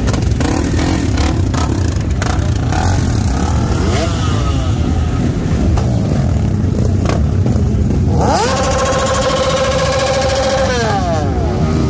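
Motorcycle engines running among a crowd of bikes, one of them revved up hard about eight seconds in, held at high revs for a couple of seconds, then dropping back near the end.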